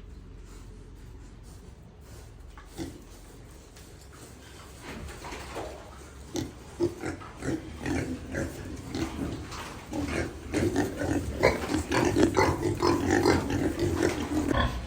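Pigs grunting: short, irregular grunts, sparse at first and coming thicker and louder from about the middle on.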